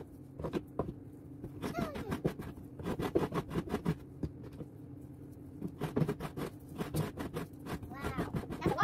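Coconut flesh scraped against the serrated metal blade of a wooden kudkuran coconut grater, in runs of quick rasping strokes with short pauses between them.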